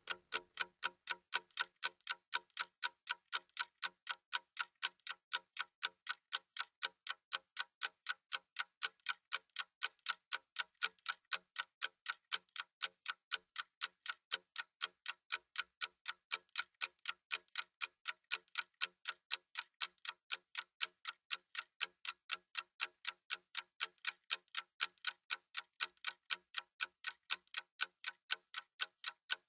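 Clock-ticking sound effect counting down a 30-second timer: steady, evenly spaced sharp ticks, several a second.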